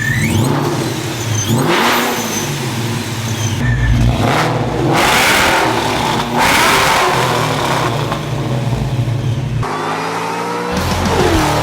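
Car engine revving hard through an aftermarket exhaust, in repeated surges.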